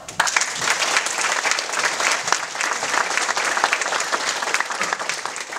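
Audience applauding, many hands clapping. It starts suddenly and dies down near the end.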